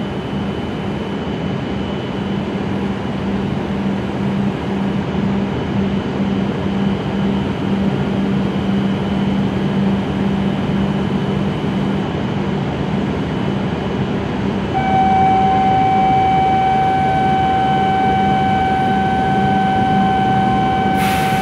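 E7 series Shinkansen train standing at the platform, its onboard equipment humming steadily. About fifteen seconds in, a steady electronic tone comes on and holds for about six seconds, ending with a short sharp click.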